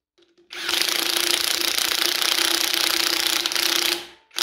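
Power tool running bolts up in two bursts: a long run of about three and a half seconds, then a short one at the end, with a fast, even rattle over a steady hum.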